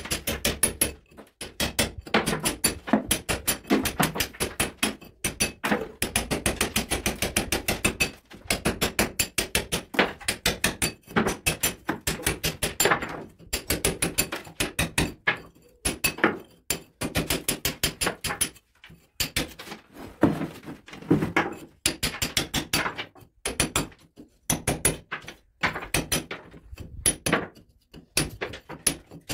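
Hand hammer striking a steel chisel, chasing a groove into a brick-and-mortar wall: quick sharp blows, several a second, in runs broken by short pauses.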